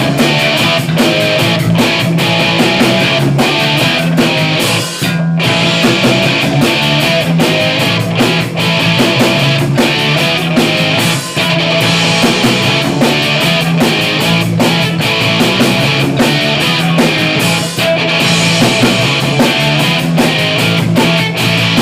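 Punk rock band playing live: distorted electric guitar and a drum kit driving a fast beat, instrumental with no vocals yet, with a short break about five seconds in.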